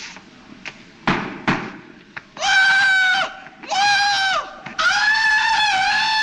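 Two sharp hits, then a man's high-pitched Tarzan-style jungle yell: two short whoops and then a long warbling yodel.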